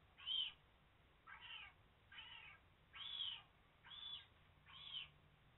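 Three-week-old bobcat kitten mewing: six short, high mews a little under a second apart.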